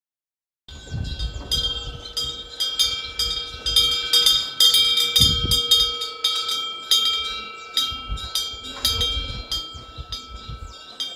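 Korean temple wind bell (pungyeong) with a fish-shaped vane, its clapper striking the metal bell over and over in quick, uneven succession as the wind swings it. Each strike rings on with several clear overlapping tones. The ringing starts suddenly, about a second in.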